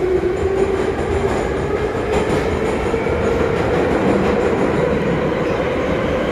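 Ezh-3 metro train running through a tunnel, heard inside the car: a steady rumble and rattle of the running car, with a motor whine that rises slowly in pitch as the train gathers speed.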